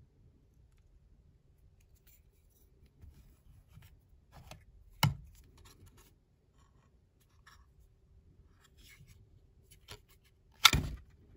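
A kydex knife sheath and fixed-blade knives being handled: light rubs and small ticks, with a sharp click about five seconds in and a louder, sharper click near the end, as a knife comes free of the kydex sheath.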